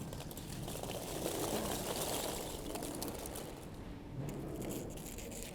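Packaging material rustling and crackling as it is handled, a busy mix of small crinkles and clicks.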